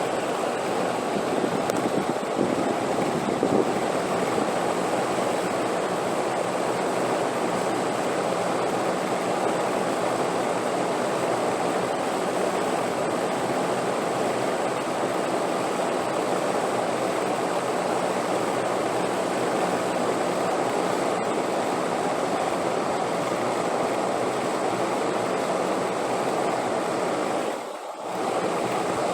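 Steady rushing wind noise, dipping briefly near the end.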